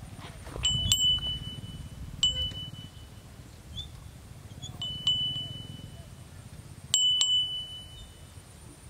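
A small metal bell struck six times, singly and in quick pairs, each strike ringing out in a clear high tone that dies away within about a second.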